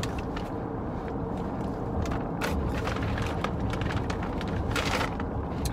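Steady low rumble of a car running, heard from inside the cabin, with a couple of brief rustles.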